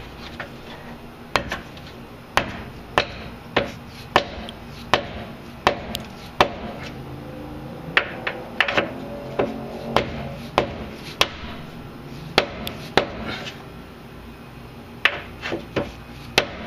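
Hammer tapping on an impact socket to drive a new pitman shaft seal up into a power steering gearbox: about twenty sharp taps, roughly one a second, with a short pause near the end.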